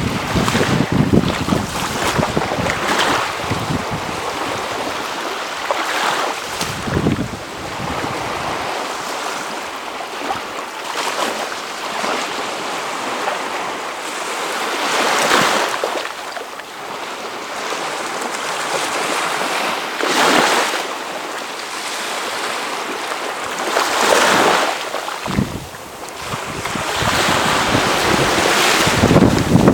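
Gentle sea waves breaking and washing ashore, one swell every few seconds, under a steady wind. Low rumbling gusts of wind hit the microphone at the start and again near the end.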